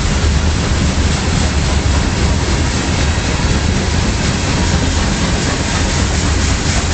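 Loaded freight cars of a gypsum train rolling past, steel wheels on rails, a steady loud rumble strongest in the low end.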